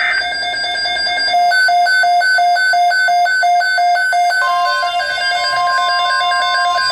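Music with a quick alternating two-note figure, then, about four and a half seconds in, a steady single-pitch tone starts under it: the 1050 Hz NOAA Weather Radio alert tone that announces a weather broadcast.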